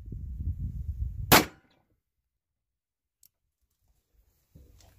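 A single shot from a Ruger Super Blackhawk .44 revolver, about a second in, firing a 3D-printed PLA plastic bullet over a Titegroup pistol-powder charge. A low rumble comes before the shot.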